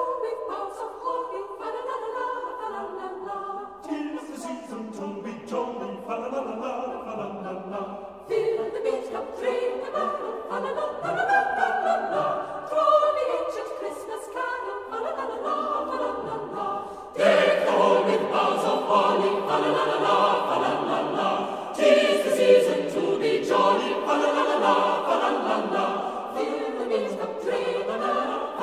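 Background choral music: a choir singing a slow piece, growing fuller and louder in steps, with a marked swell a little past halfway.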